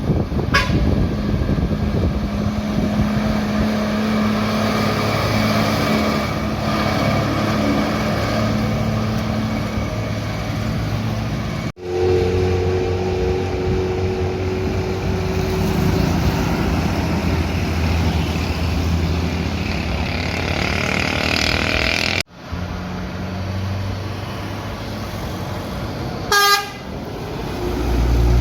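Diesel engines of Aneka Jaya coaches pulling hard up a steep climb, in three separate passes, with a held horn chord in the middle pass and a short loud horn blast near the end.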